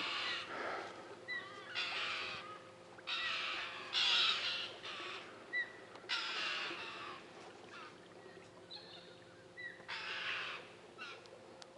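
Crows cawing: a series of harsh calls of about half a second each, with a few short, faint chirps from other birds between them.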